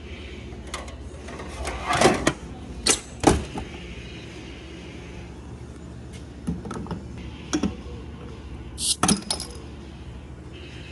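Glass Coca-Cola bottle clunking and clinking against the metal rack of a vintage bottle vending machine as it is pulled out, with three loud knocks in quick succession about two to three seconds in. Softer clicks follow as the bottle is set into the machine's built-in opener, then near the end a sharp click and a brief hiss as the cap is pried off.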